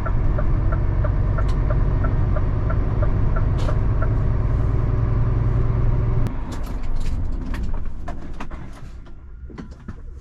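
26-tonne rigid lorry's diesel engine running, heard from the cab, with a steady rapid ticking over it; about six seconds in the engine rumble drops away sharply, followed by a few clicks and knocks.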